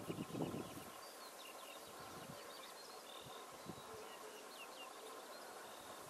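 Faint background birdsong from small wild birds: scattered short chirps and whistles, with a few low thumps in the first second.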